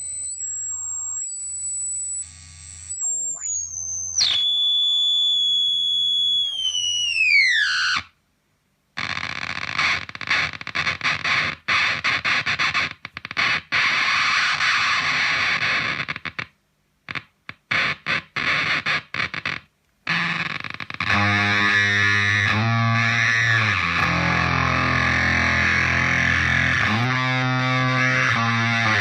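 Electric guitar, a Gibson SG on its neck pickup, through a Zvex Fuzz Factory fuzz pedal and a Roland Cube 30 amp. It opens with a high-pitched pedal squeal whose pitch steps and then dives away about eight seconds in. Next comes a sputtering, broken-up fuzz that keeps cutting out. From about twenty seconds it plays thick sustained fuzz notes that slide in pitch.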